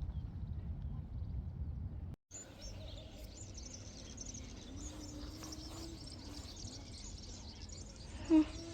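A low rumble of wind on the microphone for about two seconds, then small birds chirping and twittering high and steady.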